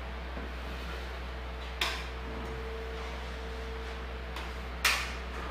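Two sharp metallic clacks of a drywall knife against a mud pan, one about two seconds in and a louder one near the end, over a steady low hum.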